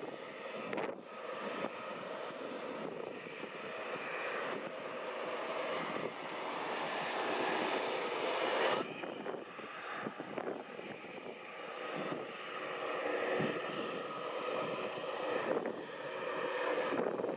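Airbus A320neo's Pratt & Whitney PW1100G geared turbofan engines running as the airliner rolls along the runway: a steady jet whine with several held tones over the engine noise. The sound changes abruptly about nine seconds in.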